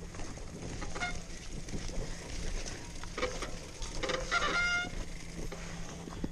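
Mountain bike rattling and clicking over a rough dirt trail, with scattered knocks and a brief high squeak about four and a half seconds in.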